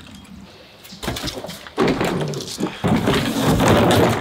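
Rustling and scraping of a Tucktec folding kayak's stiff plastic hull as it is handled rolled up with its straps. The sound starts about a second in and gets loud from about two seconds in.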